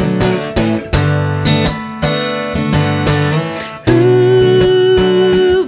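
Steel-string acoustic guitar strummed in a run of chords, then a long held note of nearly two seconds about four seconds in.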